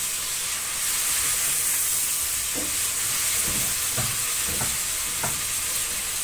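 Beef liver and green pepper sizzling in hot oil in a frying pan, a steady frying hiss. A spatula stirring the pieces gives a few soft scrapes and knocks against the pan in the second half.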